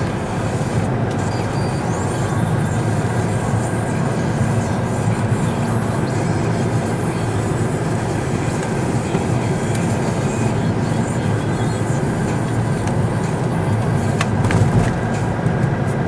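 Steady engine and tyre noise of a car driving along a road, heard from inside the cabin as an even low rumble. There is a single light click near the end.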